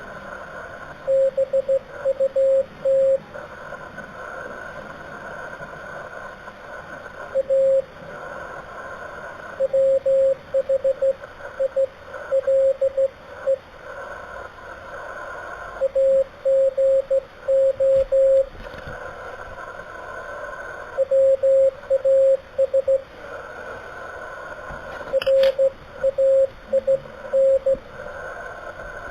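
Slow Morse code on an amateur radio transceiver: a single steady tone keyed on and off in dots and dashes, sent in groups of characters. Receiver hiss fills the pauses between groups. There is one sharp click about twenty-five seconds in.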